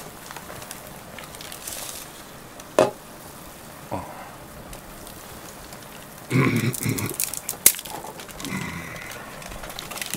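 Blocks of dry instant ramen noodles snapped and crushed by hand, giving a few separate sharp cracks a second or more apart.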